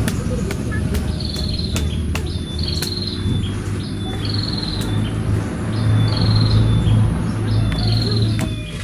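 Short, high, pulsed chirps from a small animal, repeated about every second and a half. A steady low hum runs underneath, with a few sharp clicks.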